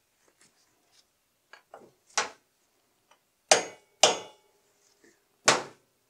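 Hammer striking a brass punch against the rocker arm blocks of a BMW R90/6 airhead's cylinder head: four light metallic taps, the middle two close together and briefly ringing, with faint clicks between. The taps are taking out rocker arm end play until oil squishes out at the rocker.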